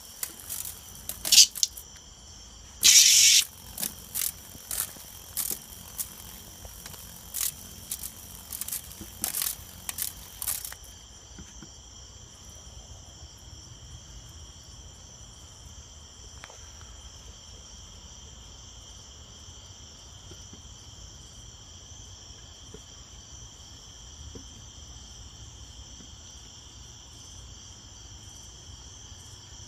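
Cicada giving a string of short buzzy bursts, about a dozen in the first ten seconds, as it moves around a porch light. The bursts stop about ten seconds in, leaving a steady high-pitched insect trill that runs throughout.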